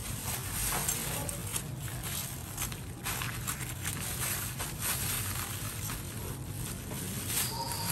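Knife cutting through the crisp fried crust of a large breaded deep-fried squid, giving an irregular crackling crunch over a steady low hum.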